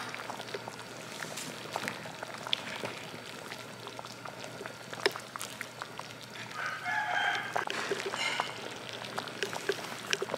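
A pot of chicken porridge simmering with soft bubbling and small clicks of a ladle stirring in it. About six and a half seconds in, a rooster crows once.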